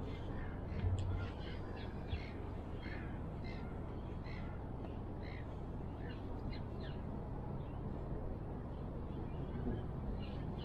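Birds calling again and again in short, scattered calls over a steady low rush of wind and sea.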